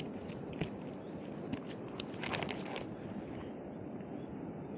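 A run of light clicks and crackles over about the first three seconds, over a steady low rushing noise that carries on alone afterwards.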